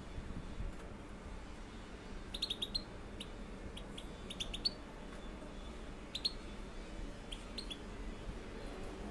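Young European goldfinches chirping: short high calls in quick little clusters, starting about two seconds in and coming again every second or two.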